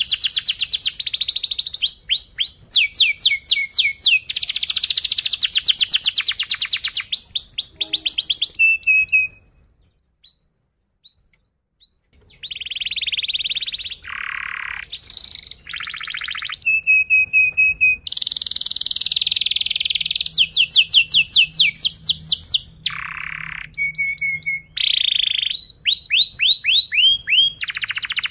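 Domestic canary singing a long, loud song of very fast, tight rolled trills mixed with chirps and short held notes, falling silent for about three seconds near the middle before starting again.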